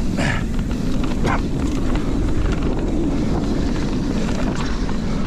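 Mountain bike riding fast down a dirt singletrack: a steady low rumble of wind buffeting the camera microphone and tyres rolling over dirt, with a few brief rattles and scrapes, one near the start and one a little over a second in.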